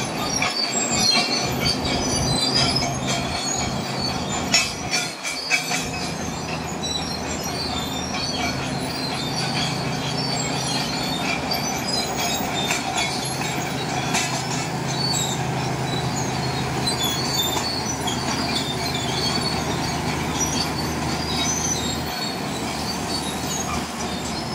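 BEML D155A crawler dozer's six-cylinder Cummins KT1150 diesel running steadily under load as the dozer crawls and pushes through the pile, with high metallic squeaks and clanking from its steel tracks. A few sharp knocks about five seconds in.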